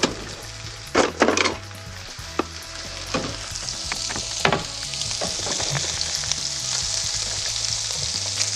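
Fish fillets sizzling as they sear in a frying pan over high heat, with a few short knocks and scrapes of a spatula against the pan in the first half. The sizzle grows louder about three to four seconds in.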